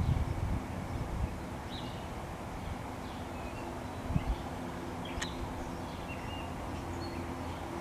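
Short bird chirps now and then over a steady low outdoor rumble, with a gust of wind on the microphone at the start.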